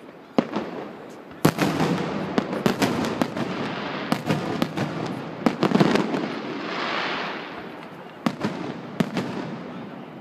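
Aerial fireworks display: a rapid series of sharp bangs from bursting shells over continuous crackling, densest from about a second and a half in to six seconds, then a softer hissing crackle that fades, with a few last bangs near the end.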